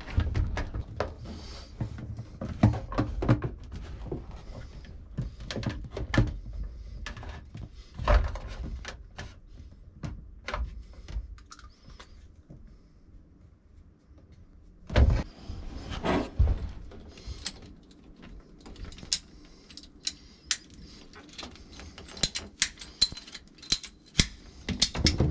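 Hands working clear braided PVC hose and plastic fittings around a washdown pump: rustling and knocking handling noise with scattered clicks. Two heavier thumps come a little past the middle, and a quick run of sharp clicks near the end.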